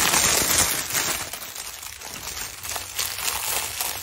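Clear plastic packaging bag crinkling and rustling as it is handled and pulled open, with a quick run of small crackles.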